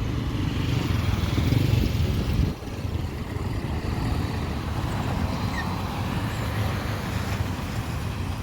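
Street traffic noise: a low motor-vehicle engine rumble that swells to its loudest just under two seconds in and drops off sharply at about two and a half seconds, then steady, quieter traffic sound.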